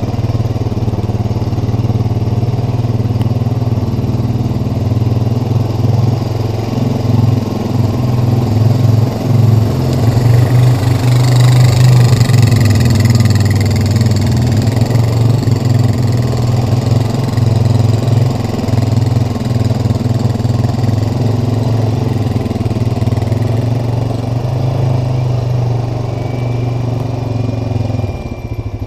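ATV engine running under load on a trail climb in four-wheel drive low range, getting louder and harsher around the middle. It drops off just before the end.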